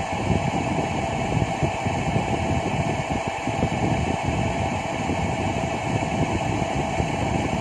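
Steady mechanical hum with an even rushing noise, unchanging throughout, like ventilation or machinery running.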